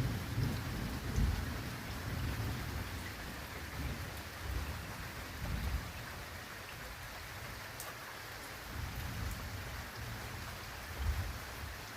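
Thunder rumbling and dying away over steady rain, with a few smaller swells of rumble later on.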